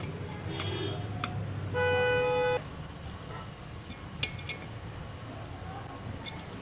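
Metal clinks and taps of an 8-9 spanner working the screw of a washing machine motor's belt pulley. A steady, even tone under a second long starts and stops abruptly about two seconds in.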